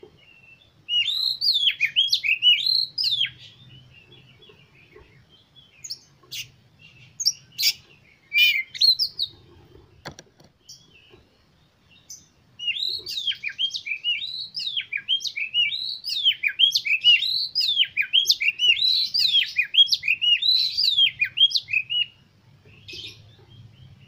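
Oriental magpie-robin (kacer) singing: a short burst of rapid rising-and-falling whistled phrases about a second in, a few separate calls a few seconds later, then a long run of song from about halfway through until shortly before the end. A single sharp click comes just before the long run of song.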